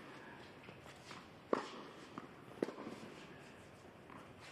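A few sharp, short knocks on an indoor hard tennis court, the two clearest about a second apart, over the quiet hum of the hall.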